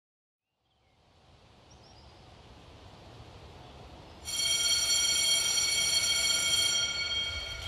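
Trailer sound design: a low, hazy ambient wash swells up out of silence, then about four seconds in a loud, high, steady tone with many overtones cuts in, holds for about three seconds and fades off near the end.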